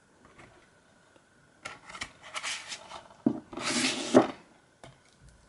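Plastic DVD case being handled and slid into its cardboard slipcover: light clicks and rubbing, then a louder scraping slide a little before four seconds in.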